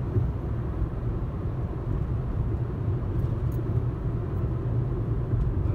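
Steady rumble of a car driving along a highway, heard from inside the cabin: engine and road noise.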